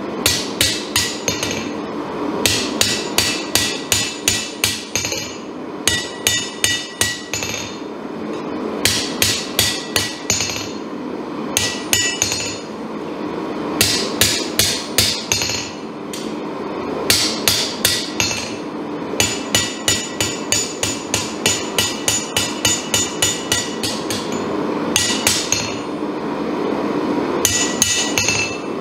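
Hand hammer striking hot damascus steel on a Kohlswa anvil, hand-forging an integral chef's knife blank. The blows come in quick runs of several strikes, about three or four a second, with short pauses between runs, and each blow leaves a bright metallic ring from the anvil.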